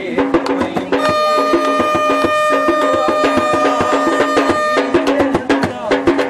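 Lively percussion-driven music with fast, dense drum and wood-block hits. A single steady high tone is held for nearly four seconds in the middle, then stops.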